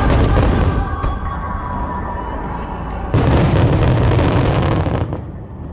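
Large firework shells, one-shaku (30 cm) aerial shells, bursting with deep booms over music. One blast rings out at the start and a second, longer one comes about three seconds in.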